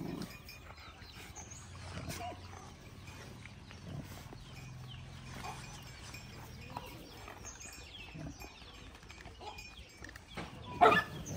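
Dogs growling low at each other while crowding over food, with one short loud yelp-like cry near the end.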